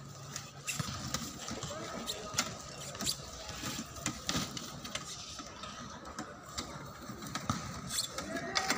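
Sports wheelchairs being pushed and turned on a concrete court, their frames and wheels giving irregular clicks and rattles, with a faint steady high tone behind.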